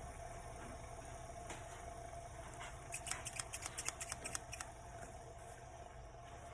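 Freshly sharpened scissors snipping open and shut in quick succession, a run of about ten crisp snips lasting a second and a half, over a faint steady hum.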